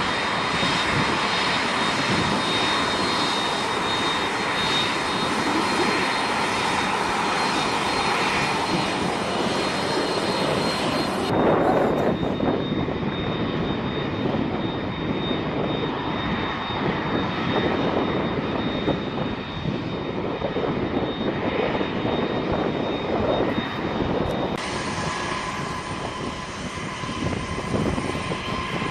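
Large jet aircraft's turbofan engines running with a steady roar and a thin high turbine whine. The sound changes abruptly twice, about 11 and 25 seconds in, as the footage cuts between shots.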